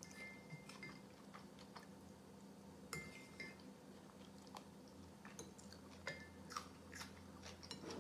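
Faint eating sounds: a spoon scraping and clinking in a soup bowl and soft chewing of kholodnik, cold beetroot soup, with scattered small clicks and a few brief squeaks.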